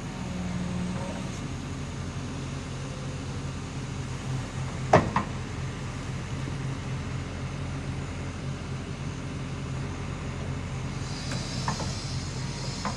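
Kobelco SK200 excavator's diesel engine running steadily as the boom and bucket move, with one sharp clank about five seconds in and a lighter one near the end.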